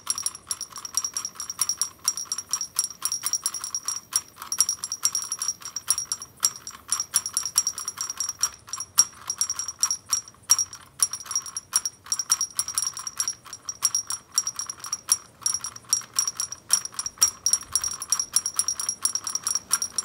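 Doll & Co 912 tin drummer toy's mallets tapping rapidly on its small tin drum: a fast, uneven clatter of light metallic taps over a thin high ringing.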